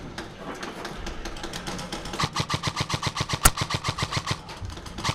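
Airsoft gun firing on full auto in a long rapid burst of about ten shots a second, starting about two seconds in. One sharper, louder crack comes in the middle of the burst.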